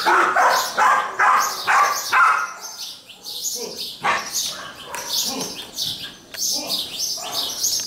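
Border collie barking repeatedly in short bursts, densely in the first two seconds or so and more sparsely after that.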